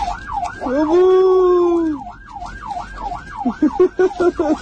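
Emergency vehicle siren going up and down in pitch about twice a second. A long, loud cry about a second in is the loudest sound, and several short sharp calls come near the end.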